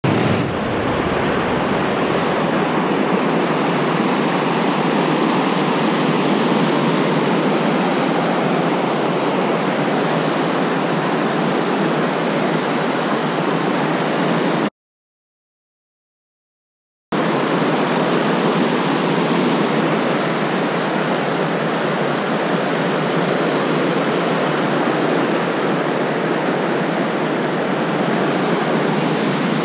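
Whitewater rapids rushing loudly and steadily over rocks below a river spillway. The sound cuts out completely for about two seconds midway, then resumes unchanged.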